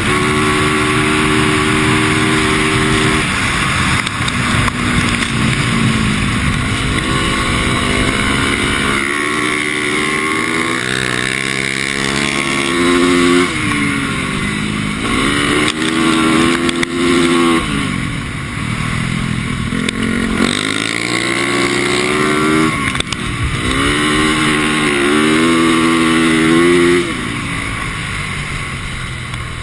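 450cc single-cylinder four-stroke dirt bike engine revving up and dropping back again and again as the rider accelerates and backs off on the throttle.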